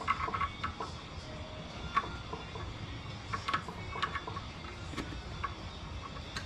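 Irregular light metallic clicks and clinks, roughly one every half second to a second, from engine parts being handled while a piston and connecting rod are fitted into a Jeep 3.8 V6 block.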